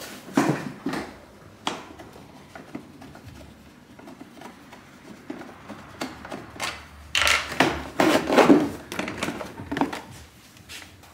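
Plastic body panel of a Piaggio SKR 125 scooter being unclipped and pulled off by hand: scattered clicks, knocks and plastic rattles, with a louder burst of clattering about seven seconds in.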